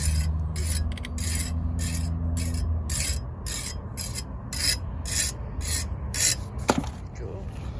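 Rhythmic rasping or scraping strokes, about two a second, over a steady low hum. The strokes stop with a sharp click about six and a half seconds in.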